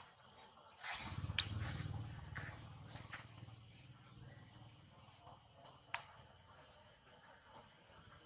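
Steady, high-pitched drone of insects, with a few sharp clicks and a low rumble from about a second in that fades out around halfway through.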